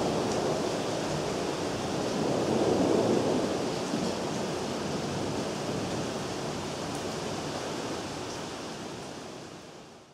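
Steady rain hissing, with a low rumble of thunder swelling about three seconds in, the whole fading out to silence at the end.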